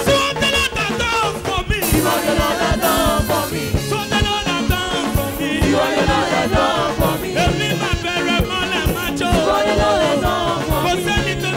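Live gospel band music with a voice singing over a steady beat.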